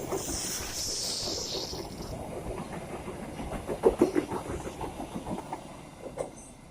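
A parcel train's wagons rolling past, wheels clacking over the rail joints, with a hiss in the first two seconds; the sound fades away toward the end as the train moves off.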